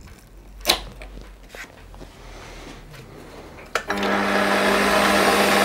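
A few light clicks, then a metal-working lathe switched on about four seconds in, its motor and spindle, with an angled milling cutter in the chuck, coming up to speed and running steadily.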